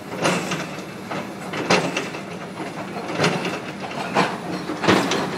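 Hydraulic excavators demolishing a concrete overpass: irregular crashes and crunches of breaking concrete, about one a second, over a steady engine drone.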